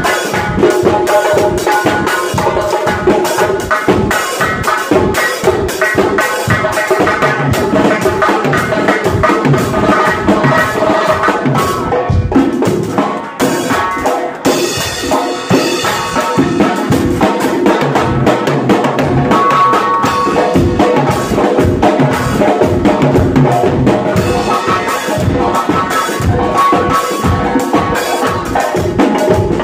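Live percussion music: a drum kit and doira frame drums beating a fast, dense rhythm, with held tones underneath. The rhythm thins briefly about halfway, then picks up again.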